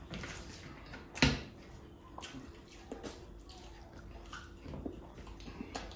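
A person eating rice and chicken curry by hand from a metal plate: faint wet squishing as the rice is mixed, and chewing. Scattered light clicks run through it, with one sharper click about a second in.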